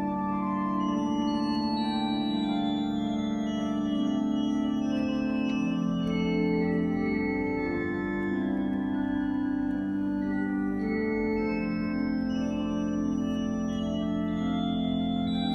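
Cathedral pipe organ playing held chords over a sustained pedal bass, with the notes moving every second or so.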